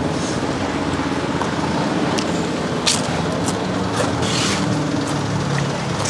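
Traffic on a busy road: a steady hum of vehicle engines, with a short hiss about four seconds in.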